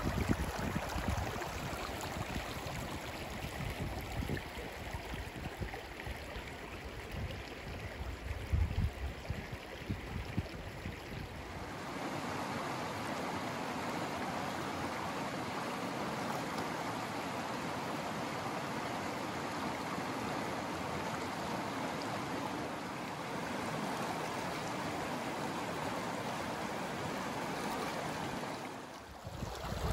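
Shallow mountain river rushing over rocks in a riffle, a steady sound of running water. Gusts of wind rumble on the microphone through the first part. About twelve seconds in, the sound changes sharply to a steadier, fuller rush of the riffle.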